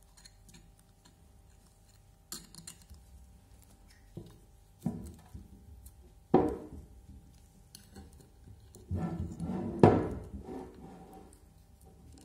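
Metal parts of a Bosch GBH 5/40 DCE rotary hammer's gear housing clinking and knocking as they are handled and fitted by hand. A handful of separate knocks, the loudest about six and ten seconds in.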